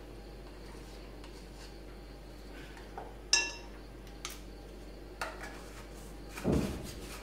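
Measuring spoons and small cups clinking against a ceramic mixing bowl as baking ingredients are spooned in. It is a few separate clinks: the loudest rings briefly a little over three seconds in, and a duller knock comes near the end.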